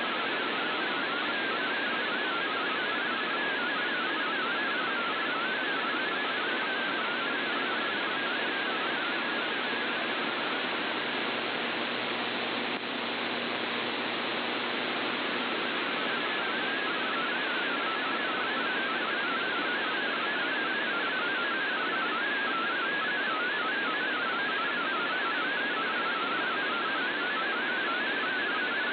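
MFSK32 digital text signal received on shortwave: a rapid warble of hopping tones sitting in heavy static hiss. The reception is weak and noisy.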